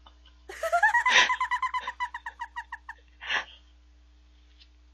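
A high-pitched giggle: a quick run of squeaky pulses that rises in pitch, then fades over about two seconds, followed by a short sharp breath.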